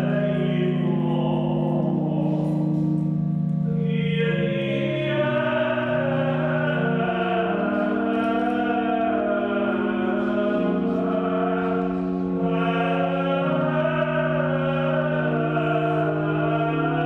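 Organ holding sustained chords that step from one chord to the next, with a single male voice singing Gregorian chant over it.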